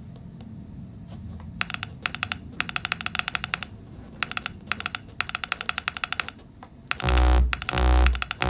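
Rapid typing on a laptop keyboard in short runs of clicks over low room noise. Near the end, loud music with pulsing deep bass comes in over it.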